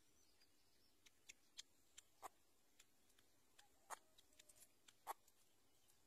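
Faint, irregular sharp clicks, about a dozen, some in quick clusters, from a bird feeding its chicks in a twig nest.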